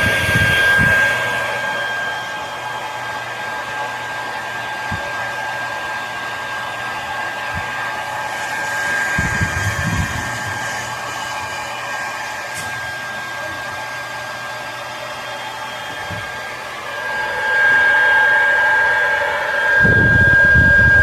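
Hair dryer blowing steadily with a constant high whine over the rush of air, getting louder in the last few seconds, with a few low rumbles of air hitting the microphone.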